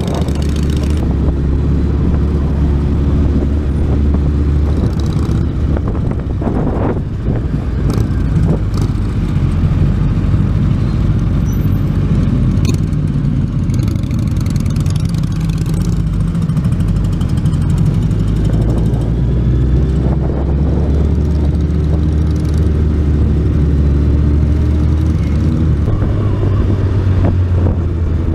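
Motorcycle engine heard from the riding bike itself while moving in traffic, its pitch rising and falling with throttle and gear changes over a steady rush of road noise.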